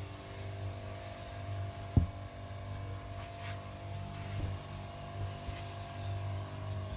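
Low steady hum, with one sharp knock about two seconds in and a fainter knock later, as a plastic knapsack sprayer tank is handled.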